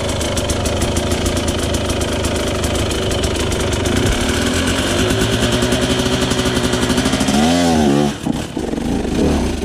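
Dirt bike engine running hard under load, its revs climbing over several seconds, then wavering rapidly up and down before dropping off sharply about eight seconds in.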